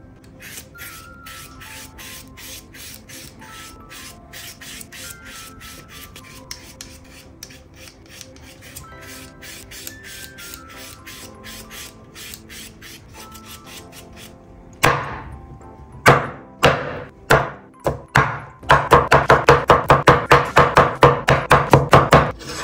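A Y-shaped vegetable peeler scraping the skin off raw potatoes in quick repeated strokes, over soft background music. About fifteen seconds in, a kitchen knife starts cutting the peeled potato on a wooden cutting board: a few separate chops, then rapid chopping at about five strikes a second near the end, the loudest sound.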